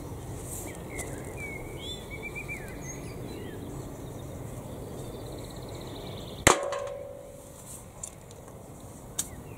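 Metal garden rake working through lumpy dug soil with a low scraping rustle. About six and a half seconds in comes a single loud, ringing clang as the rake strikes something hard. Birds chirp between about one and three seconds in.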